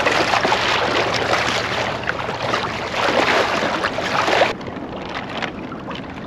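Wind rushing across the microphone over choppy water splashing against a kayak's hull. The wind noise drops off suddenly about four and a half seconds in.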